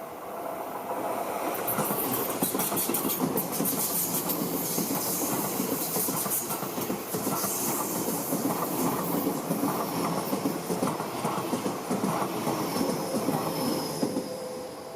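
Seibu Ikebukuro Line electric train passing the level crossing close by, building up about a second in and dying away near the end, with a run of wheel clicks over the rail joints in the first half.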